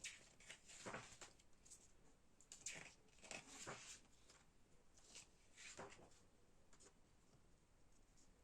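Faint paper handling: short soft swishes and light taps, about every second or so, as the pages of a glossy album photo book are turned and handled.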